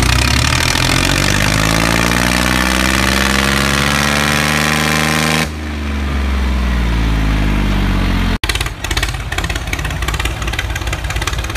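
Electric drive of a homemade model tractor pulling a spinning rotavator through sand: a steady motor whir that slowly climbs in pitch, changes abruptly about five and a half seconds in, and breaks off for an instant past eight seconds before running on rougher.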